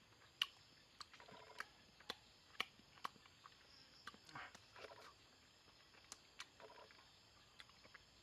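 Faint, scattered sharp clicks, about one or two a second, with a few short soft rustles between them.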